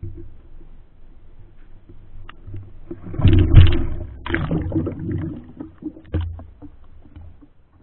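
A few handling knocks, then about three seconds in a loud splash and rush of bubbling water as an ROV carrying a 360 camera is lowered into the lake. The splash fades into water sloshing around the camera, with another sharp knock about six seconds in.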